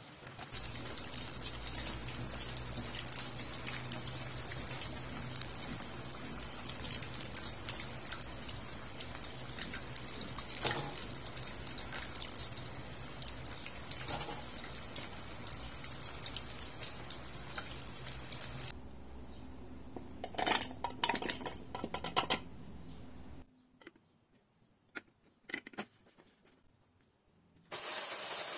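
Battered chicken feet deep-frying in a pot of oil: a steady crackling sizzle with occasional clicks of metal tongs. About two-thirds of the way in the sizzle cuts off, followed by a few clinks and knocks and a quiet stretch, and just before the end a small electric food chopper starts with a steady whir.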